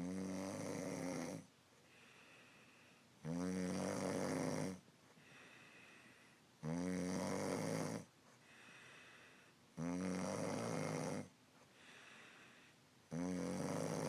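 A man snoring in his sleep: five long, loud snores at a steady pace about three seconds apart, with faint breaths between them.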